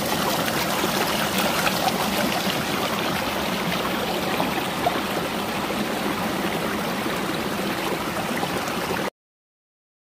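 Mountain stream flowing over rocks: a steady wash of running water that cuts off suddenly near the end.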